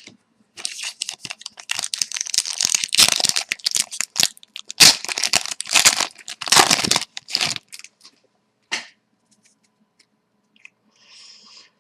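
Foil wrapper of a trading card pack being torn open and crinkled, a quick run of rips and rustles that stops about nine seconds in, with one faint rustle near the end.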